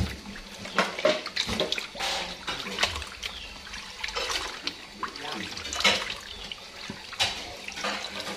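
Water sloshing and splashing in a basin as hands scrub a pig's head in rice-washing water, in irregular splashes.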